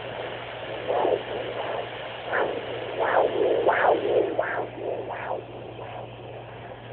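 Fetal doppler: a rhythmic whooshing pulse, roughly three beats every two seconds, over a steady electrical hum; the pulses grow louder in the middle and fade away near the end.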